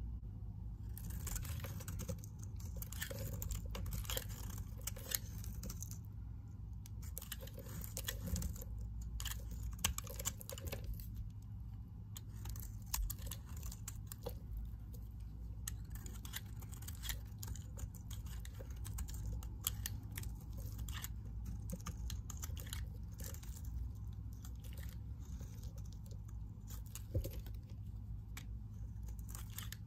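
A blade shaving thin slices off a hard bar of green neem soap, with dense, irregular crisp scraping and crackling as the dry flakes break away. It starts about a second in, with a couple of brief lulls.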